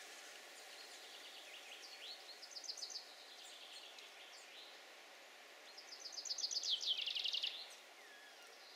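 Songbirds singing in spring woodland: scattered high chirps and two quick trilled phrases of rapidly repeated high notes, the second and louder one about six seconds in, over a steady faint outdoor hiss.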